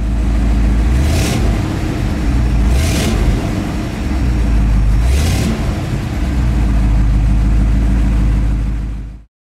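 Chevelle SS 454's big-block LS5 V8 running with a deep rumble, revved briefly three times about two seconds apart. The sound cuts off sharply near the end.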